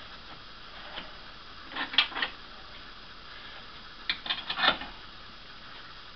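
Steel C-clamp being fitted over two wooden boards and its screw tightened: sharp metal clicks and knocks, one about a second in, a short cluster around two seconds in and another just past four seconds.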